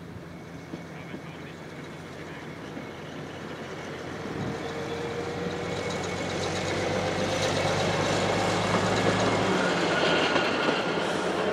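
Diesel railcar VT102 running along the track with a trailing coach: engine drone and the rolling of steel wheels on rails, growing steadily louder as it nears. The low engine drone falls away near the end while the wheel noise carries on.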